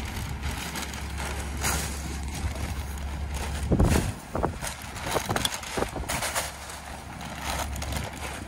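Rear-loader garbage truck idling while paper yard-waste bags are thrown into its hopper, with a loud thump a little under four seconds in followed by several knocks and bangs of bags and a can.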